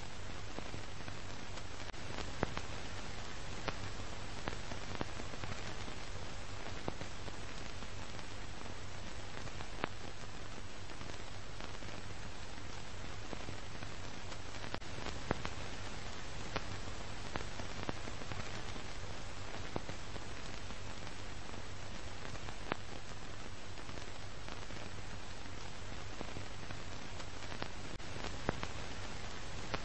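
Steady hiss with scattered faint crackles and a low hum: the surface noise of an old film soundtrack.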